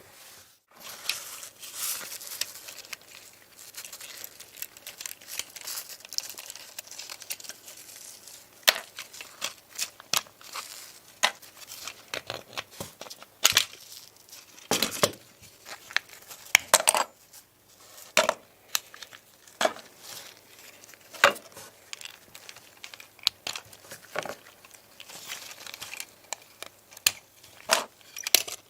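Hand work in a workshop: irregular sharp clicks and taps of small parts and tools over a rustling, scraping noise that is busiest in the first few seconds.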